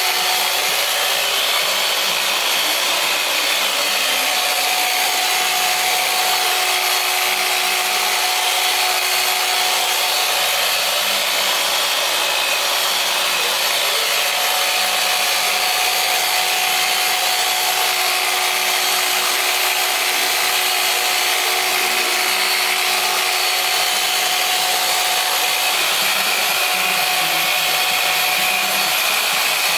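Electric machine polisher running steadily at one speed, a constant motor hum under the hiss of its foam pad working the car's paint.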